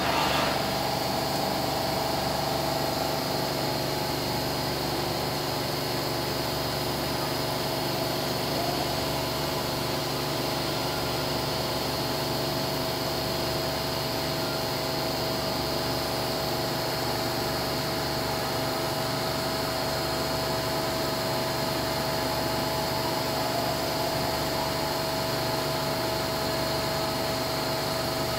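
Cincinnati Lamb FTV5 five-axis CNC machining centre running, with a steady high spindle whine over the constant hum of the machine.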